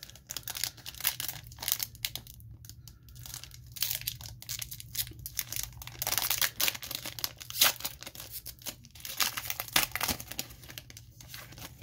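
Foil wrapper of a Panini Playbook football card pack being torn open and crinkled by hand: irregular crackles and ripping noises.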